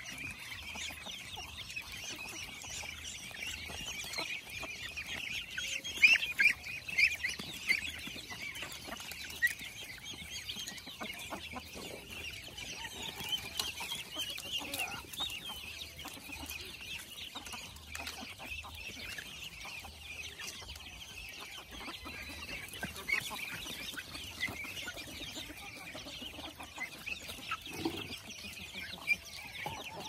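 Farmyard flock of chickens and ducks feeding, with steady, busy clucking and chirping. A few sharp clicks stand out about six to eight seconds in.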